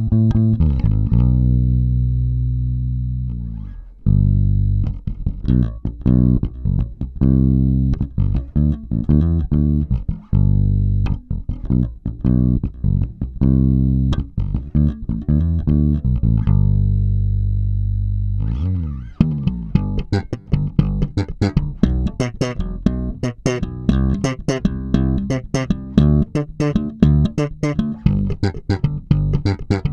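Warwick Corvette $$ electric bass with two humbucking pickups played solo: plucked notes and runs with two long held notes, one early and one past the middle. The last ten seconds are denser, with sharper, brighter attacks.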